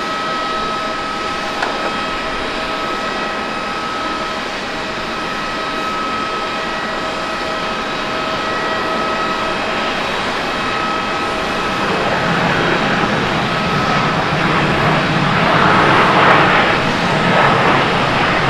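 Airbus A350-900 airliner's Rolls-Royce Trent XWB jet engines whining steadily as it lands and rolls out along the runway. A louder rushing roar builds from about two-thirds of the way through and peaks near the end.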